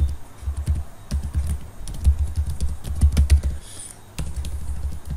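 Computer keyboard typing: a fast, uneven run of keystroke clicks, each with a dull low thump, and a short break about four seconds in.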